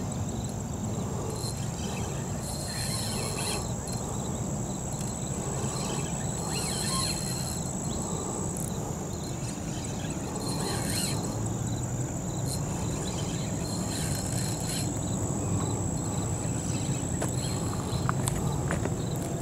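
Riverbank ambience with insects chirping: a thin steady high tone, hazy high buzzing that swells about every two seconds, and a steady low background noise, with a few faint clicks near the end.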